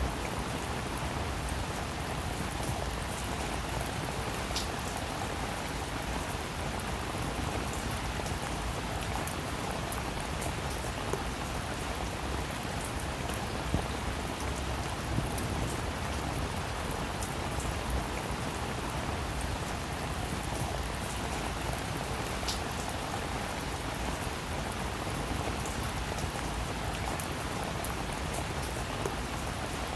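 Steady rainfall, with raindrops pattering on a surface and now and then a single louder drop.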